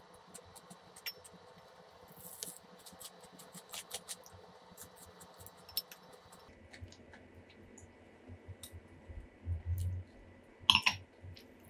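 Faint eating sounds: scattered small clicks of chopsticks and chewing. Near the end comes a sharp clink with a short ring, a stemmed wine glass being set down on the table.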